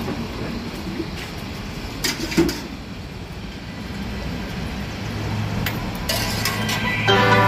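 Steady low rumble of street background with a few sharp clinks of a metal ladle against the bowl and pot about two seconds in. Background music comes in near the end.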